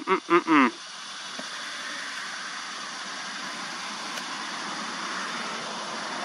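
A short, loud voiced sound with sliding pitch, like a person's voice, in the first second, then a steady rushing background noise that swells slightly toward the end.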